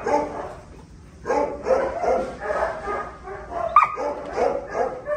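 Young pit bull-type dogs barking in rough play: short barks about three a second after a brief lull, with one sharp high yip near the end.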